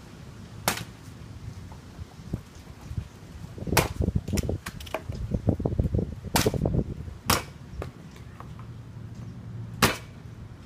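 A sword slicing through a foam pool-noodle target, heard as sharp snapping cracks, five in all, a few seconds apart, with duller low thuds in the middle of the run.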